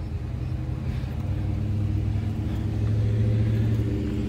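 A motor running with a steady low hum, a little louder about three seconds in.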